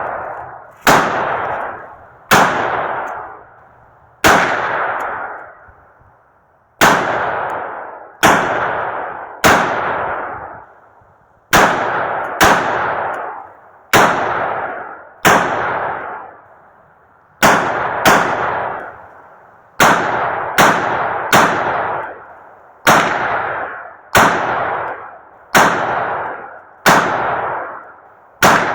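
Rifle shots fired in steady succession, about two dozen in all, roughly one every second or two, each followed by a fading echo.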